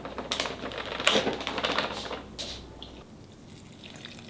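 Plastic packet of frying mix crinkling in quick crackling clicks as the powder is shaken into a steel mixing bowl, dying away after about two and a half seconds.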